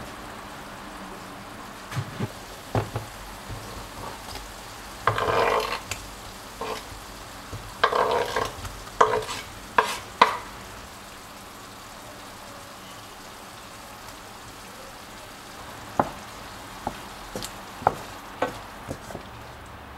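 Onions simmering and sizzling in a stainless steel frying pan. Louder bursts of sizzling and clatter come about five seconds in and again from eight to ten seconds as chopped tomatoes are scraped into the pan. Near the end a wooden spoon stirs and knocks against the pan several times.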